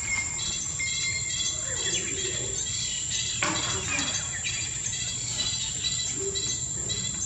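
Outdoor ambience: a steady high insect drone under repeated short bird chirps, with a single brief tap about three and a half seconds in.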